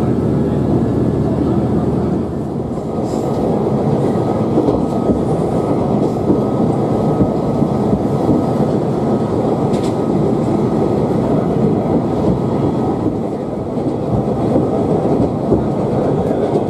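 Steady running noise of a Moka Railway diesel railcar at speed, heard from inside the passenger cabin: a dense rumble of wheels on rail with a thin, steady high tone above it and a single brief click about ten seconds in.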